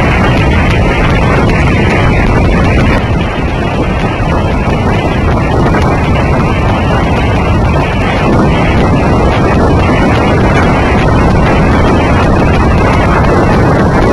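Wind in a snowstorm buffeting the microphone: a loud, steady rush of noise with no let-up.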